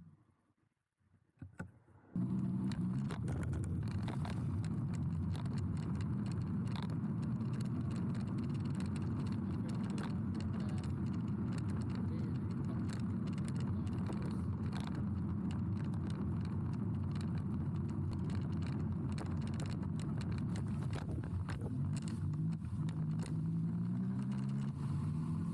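Riding noise from a Tronic Roadrunner electric mini-bike on its test ride: steady rushing wind and road noise with a low hum and small rattles. It starts suddenly after about two seconds of near silence, and the hum rises in pitch near the end as the bike speeds up.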